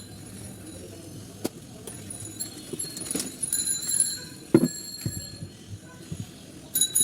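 Scattered clinks and knocks of small metal tools and parts being handled, several with a short high ringing, and a duller knock about four and a half seconds in.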